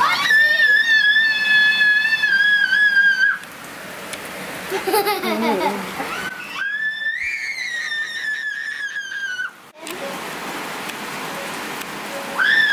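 A child's long, high-pitched squeals: one held for about three seconds, a second after some shorter voice sounds midway, and a brief one at the end, with rain falling in the background.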